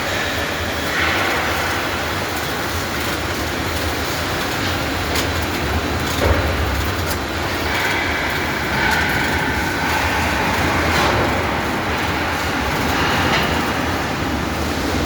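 Steady industrial machinery noise: a low rumble under a hiss, with a whine that shifts in pitch and comes and goes every few seconds.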